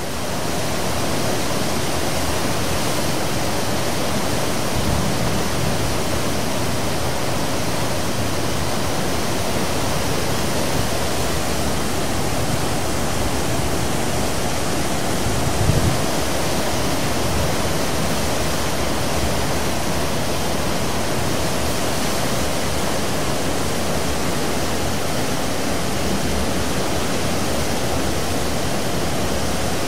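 Seawash churning at the stern of a 17,400-ton car ferry under way: a steady, dense rush of wake water, with two brief low surges, one about five seconds in and one near the middle.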